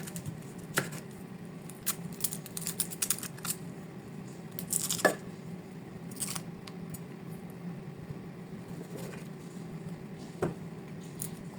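Kitchen knife cutting onion, garlic and dried chillies on a cutting board: scattered light taps and clicks at irregular spacing, the loudest about five seconds in.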